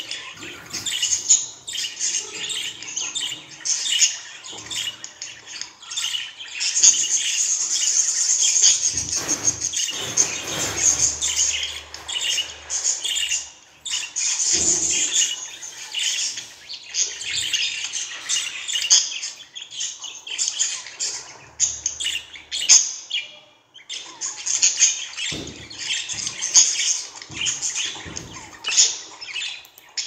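Budgerigars chattering and warbling in a rapid, continuous stream of high chirps and short squawks, with brief pauses.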